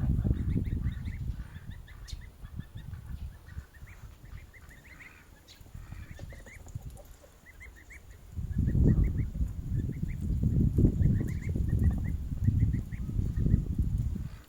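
Goslings peeping in quick runs of short, high notes. A loud low rumble covers the first couple of seconds, drops away, then comes back about eight seconds in and stays.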